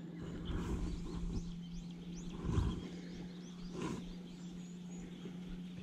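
Electric trolling motor running with a steady low hum as the aluminium boat moves over the water, with a couple of dull knocks partway through.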